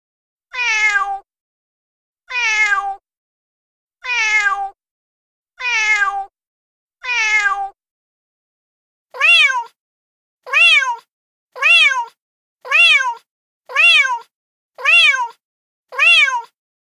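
Recorded domestic cat meows played from a cat-sounds app: one meow that falls in pitch, repeated five times about every second and a half, then a shorter meow that rises and falls, repeated seven times about once a second. Each repeat is identical, with dead silence between.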